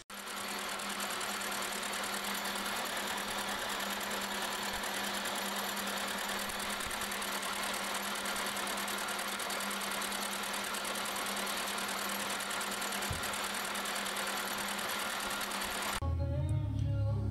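Vertical milling machine running steadily while an end mill side-cuts a steel block, a constant motor hum under the cutting noise. Music takes over near the end.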